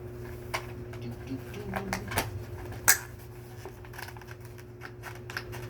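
Hard plastic clicking and knocking as a vacuum bag's plastic tabs are pushed into the slots of a Hoover Elite upright vacuum's housing, with one sharp snap about three seconds in and lighter clicks after it.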